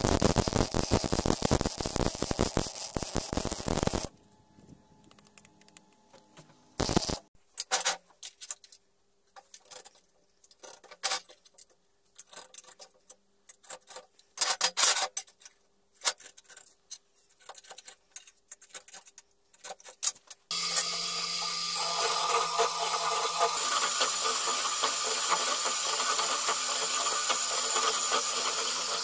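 A welding arc crackling for about four seconds, then short scraping strokes and clicks of a hand tool on a steel plate. About twenty seconds in, a belt-driven drill press starts and runs steadily as its bit cuts into a steel flat bar.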